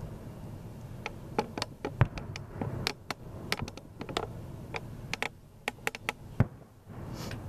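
Fireworks crackling: an irregular run of sharp pops and snaps, with two heavier bangs, about two seconds in and a little after six seconds, and a short hiss near the end.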